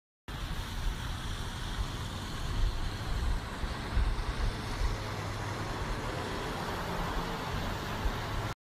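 Outdoor ambience: an even hiss over an uneven low rumble that rises and falls, cutting off suddenly near the end.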